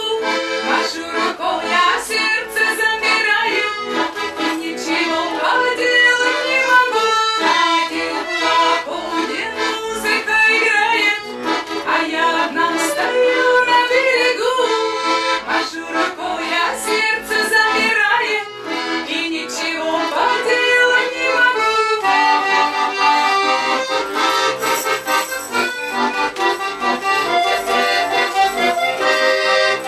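Russian garmon (button accordion) playing a folk tune, melody over pumped chords, with the passage changing about two-thirds of the way through.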